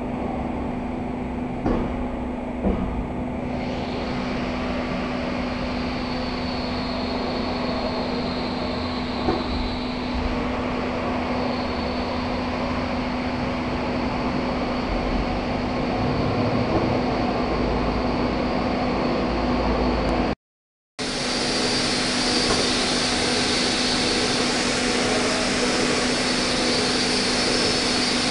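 Mazak FJV 250 CNC vertical machining center running under power: a steady mechanical hum with a high whine that sets in a few seconds in. The sound drops out completely for under a second about twenty seconds in.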